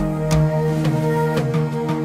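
Instrumental background music: sustained notes over a steady beat about twice a second.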